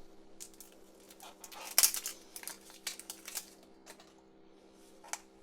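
A Shopkins toy surprise egg and its packaging being opened by hand: scattered short clicks and rustles, the loudest about two seconds in, over a faint steady hum.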